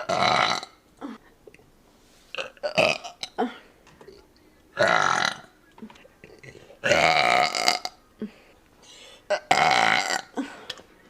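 A woman burping loudly over and over: four long burps a couple of seconds apart, with shorter ones in between.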